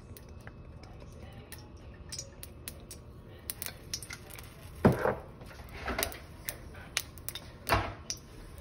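Sesame oil heating in a hammered wok on an electric coil burner, giving off small irregular crackles and ticks from about two seconds in. A few louder knocks come in the second half.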